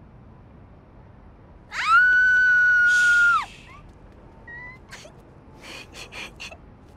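A young woman's high-pitched squeal of delight, held steady for nearly two seconds, starting about two seconds in. She has just found a much higher audition score than she expected. A few short, soft breathy sounds follow.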